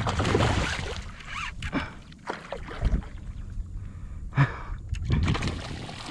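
Hooked fish thrashing and splashing at the water's surface close to a kayak, loudest in the first second, then a few smaller splashes.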